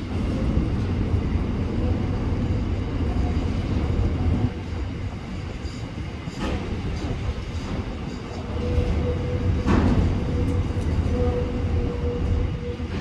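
Container freight train wagons rolling past at speed, a steady low rumble of wheels on rail with two sharp clanks, about 6.5 and 10 seconds in. A faint thin whine comes and goes in the later part.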